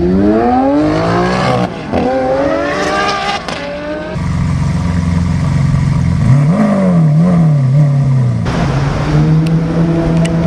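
Supercar engines in several cut-together clips: the first two accelerate hard with rising pitch, then an engine holds a steady note with a short rev blip in the middle, and after a sudden cut another engine runs on a steady note.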